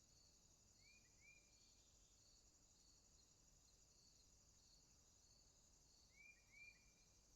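Faint chorus of insects: a steady high-pitched buzz with a regular chirp about every two-thirds of a second. A bird gives a quick double call about a second in and again near the end.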